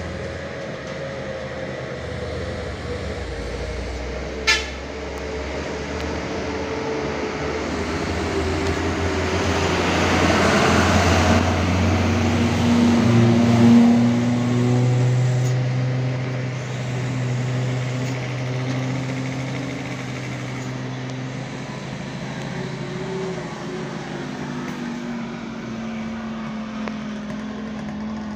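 Diesel trucks running through a hairpin bend, their engine drone shifting in pitch as they pass. A light dump truck goes by close, loudest about 10 to 14 seconds in. There is a single sharp click about four seconds in.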